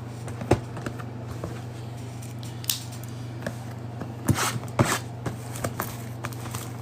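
Football trading cards being handled out of a freshly opened pack: scattered light clicks, taps and brief rustles of card and wrapper, over a steady low hum.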